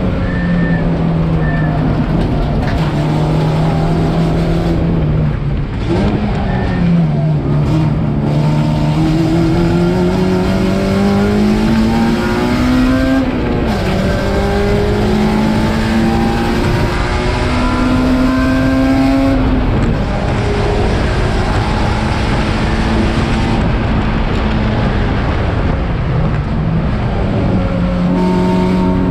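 Race car engine running hard on track. Its pitch holds steady, then climbs slowly and drops sharply twice, near the middle and about two-thirds of the way in, as it shifts up through the gears.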